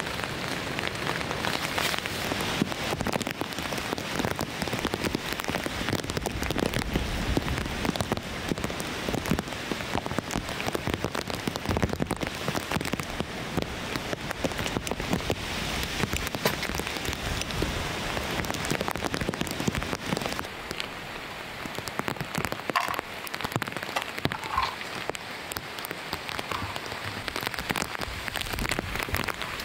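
Heavy rain falling, a dense steady patter of drops. About twenty seconds in it turns a little quieter and duller.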